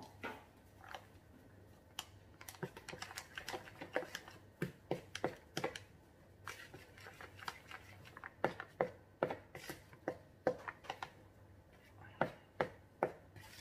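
Metal spoon clicking and scraping against the sides of a plastic mixing bowl while flour is stirred into a batter: a run of quick, irregular clicks starting about two seconds in, thinning out near the end.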